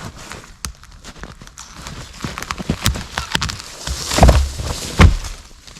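Dry wood cracking and snapping amid crunching steps in the undergrowth, ending in two heavy thuds a little under a second apart.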